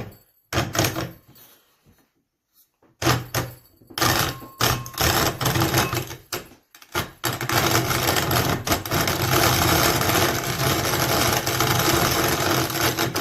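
Cast-iron hand-cranked grain grinder crunching rice between its burrs as the handle is turned, stiff because the burrs are set tight. After a brief silence it comes in short choppy bursts, then grinds continuously from about seven seconds in.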